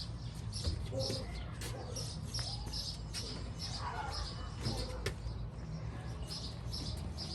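A bird chirping over and over at an even pace, about three short high chirps a second, over a low steady hum.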